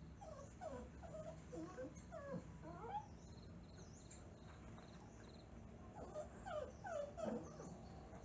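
Small dogs whimpering and whining in short, falling cries, in two bouts: one near the start and one near the end.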